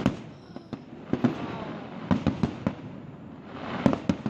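Fireworks display: aerial shells bursting in an irregular series of about ten sharp bangs, some in quick clusters, over a continuous crackle.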